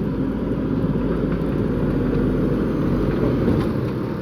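JCB backhoe loader's diesel engine running steadily, with a few faint clicks over it.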